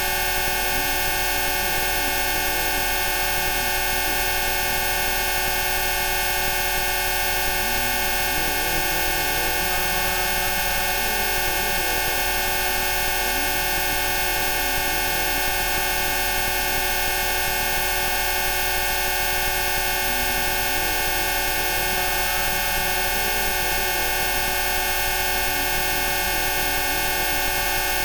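Rife frequency tones: many steady electronic tones sounding together as one unchanging drone, with a fainter lower tone slowly wandering up and down beneath them.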